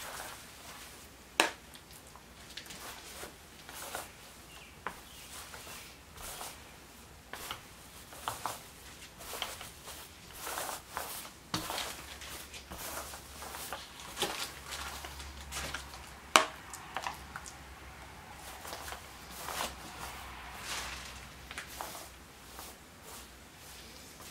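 A small foam roller being worked over a wet topcoat on a glossy tabletop and dipped in a plastic tray: faint, irregular soft rolling and handling sounds with scattered clicks. Two sharper clicks come about a second in and about two-thirds of the way through.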